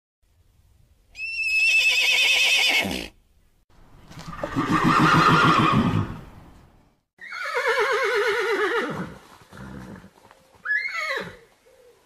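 Mustang horses neighing: a high, quavering whinny, a lower and longer neigh, another quavering whinny that falls in pitch, then shorter calls near the end.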